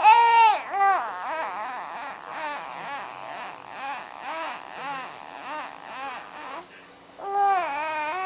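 A high, pitched voice making odd vocal noises: a loud call at the start, then a run of short rising-and-falling calls about two a second that grow fainter, and a louder drawn-out call near the end.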